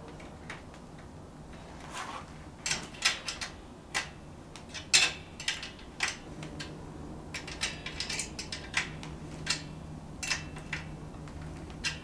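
Irregular metallic clicks and clinks of a small flat multi-wrench working the kickstand mounting bolt on a bicycle frame, as the kickstand is tightened into place. The loudest clink comes about five seconds in.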